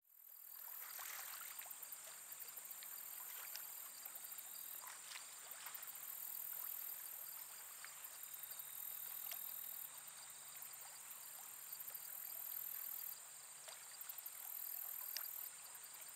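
Faint outdoor ambience: a steady high-pitched hiss with scattered light ticks, and a thin high tone for about two seconds near the middle.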